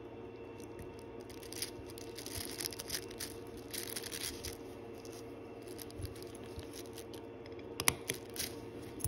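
Faint scraping and rustling of small watch parts and tools being handled at a watchmaker's bench, with a few light, sharp clicks near the end, over a steady hum.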